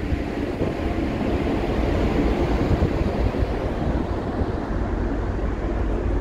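Wind buffeting the microphone on an open ship deck: a steady, uneven low rumble with a noisy hiss above it.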